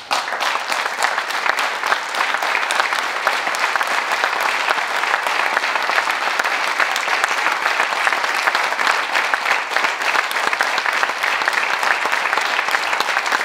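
Parliamentary assembly applauding: dense, even clapping at a steady level.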